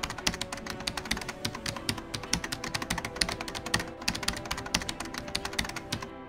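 Rapid keyboard-typing clicks, a typing sound effect, over soft background music with held notes; the clicks stop near the end.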